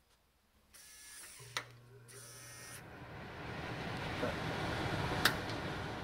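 SwitchBot button pushers whir briefly twice and click as they press the range hood's button. The stove fan starts with a low hum, and its rush of air builds over a few seconds to a steady level. There is one sharp click near the end.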